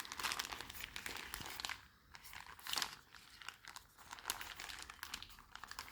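Irregular crinkling and rustling of packaging as a folded Scrubba wash bag is unpacked and handled, with short pauses.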